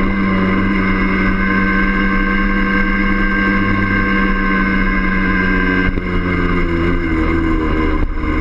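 Yamaha DT50M's 50 cc two-stroke single-cylinder engine running steadily under way, with two brief dips, about six seconds in and near the end.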